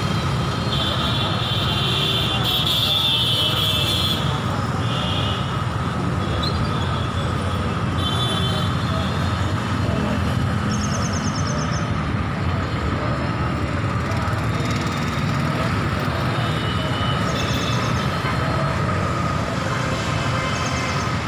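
Steady city road traffic noise with a low rumble, broken by a few short high-pitched toots, typical of vehicle horns.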